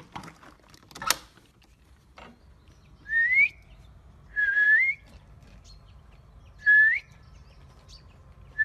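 A person whistling to call a cat: three short whistles, each sliding up in pitch at its end, with a fourth beginning at the very end. A sharp click comes about a second in.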